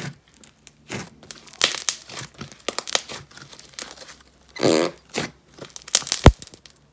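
Hands squishing and poking a thick white slime in a plastic tub: irregular sticky crackles and pops, with a denser burst of crackling just before five seconds in and a sharp click a little before the end.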